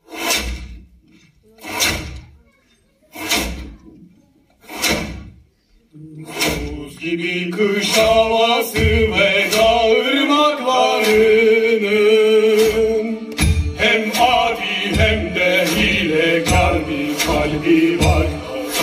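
Slow, evenly spaced percussion strikes, about one every second and a half. From about six seconds in, chanting voices join over a steady low beat, as stage music.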